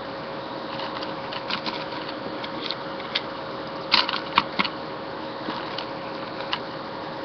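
Light clicks and clinks of handling, scattered at first with a quick cluster of louder ones about four seconds in, over a steady hum.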